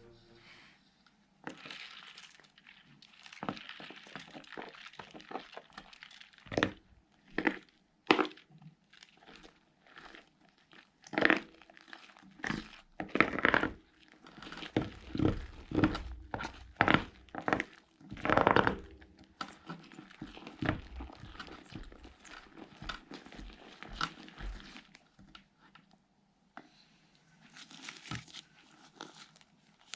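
Slime being kneaded and stretched by hand, giving irregular sticky crackling and crinkling sounds that come in uneven bursts, loudest in the middle.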